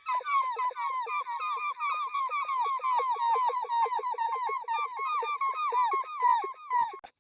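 A child's voice imitating an animal or bird call: a fast, unbroken chatter of short, high, hooked chirping notes, about six a second.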